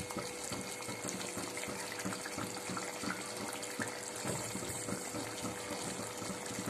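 Chicken pieces cooking in a kadai of oil and their own released water: a steady sizzling hiss with many small pops as the water cooks off.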